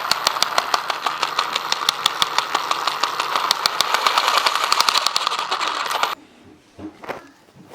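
Traxxas Stampede VXL 4x4's brushless motor and drivetrain running with a steady whine and a rapid, regular clicking, several clicks a second, from the rear gearbox. It cuts off suddenly about six seconds in, followed by a few light knocks. The clicking comes from gunk and small rocks stuck between the gear teeth.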